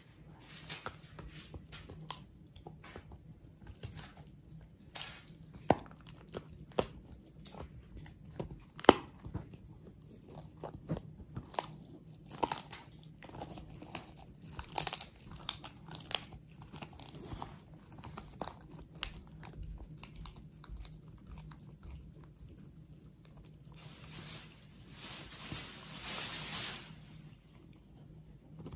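Miniature schnauzer gnawing and chewing a dog chew, with irregular crunches and clicks of its teeth on the chew, and a longer rasping stretch near the end.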